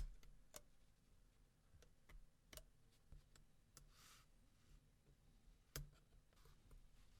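Faint, irregular clicks and ticks of a dental tool working around the edges of a phone's top shielding lid to release it, with a brief soft scrape about four seconds in.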